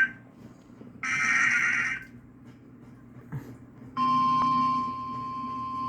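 NOAA Weather Radio Emergency Alert System broadcast: the end of one burst of SAME header data, then a second one-second SAME data burst about a second in. After about two seconds of low background noise, the steady single-pitch 1050 Hz warning alert tone starts about four seconds in.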